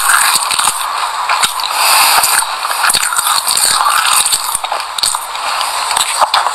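Close-up chewing of a mouthful of raw white sesame seeds: dense, continuous crunching made of many small crackles and clicks.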